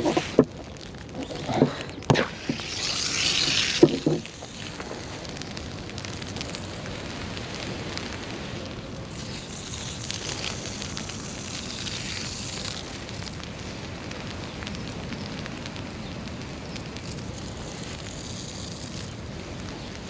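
A propane flame-weeder torch: a few handling knocks, then a short hiss of the burner that cuts off about four seconds in. After it, dry grass burning low in a small patch, with a steady soft hiss and crackle.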